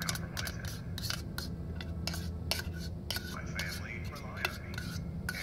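A spoon clinking and scraping against a cooking pot as food is scooped out, an irregular run of sharp clicks with some squeaky scrapes, over a steady low hum.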